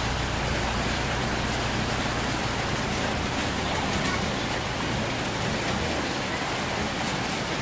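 Steady hiss of heavy rain, over the low hum of a motorboat engine running, which fades out near the end.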